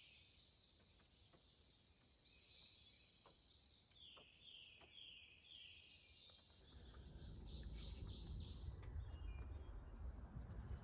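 A songbird singing faintly, repeating one short phrase of quick slurred notes followed by higher buzzy notes about four times. A low rushing noise swells in during the last few seconds.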